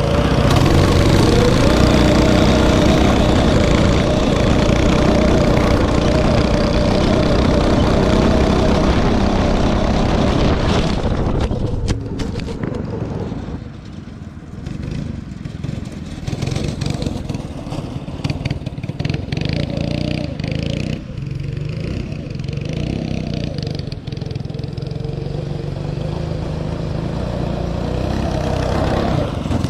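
Go-kart's Predator 212 single-cylinder engine, fitted with a stage one kit, running hard at full throttle on a lap. It is loud at first, drops away about twelve seconds in as the kart gets farther off, and grows louder again near the end as it comes back around.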